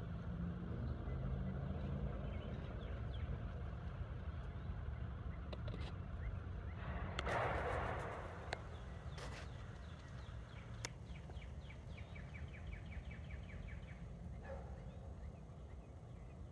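Outdoor ambience: a steady low rumble with a brief rustling burst about seven seconds in, and a bird's rapid trill of short repeated notes near the end.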